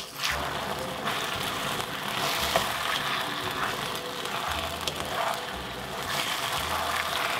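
Stir-fried beef, vegetables and sauce sizzling in a wok as egg noodles are stirred through with a wooden spatula. A few light taps of the spatula can be heard.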